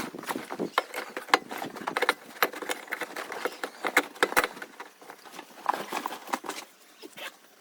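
Rapid, irregular light clicks and taps, growing sparser and quieter near the end.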